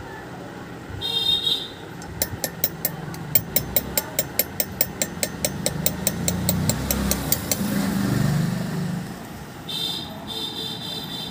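Rapid, even tapping of a small hammer on a chasing tool against a brass idol, about four taps a second for some five seconds, as the craftsman works in fine detail. A low vehicle rumble swells and fades behind it, and brief high-pitched tones sound about a second in and again near the end.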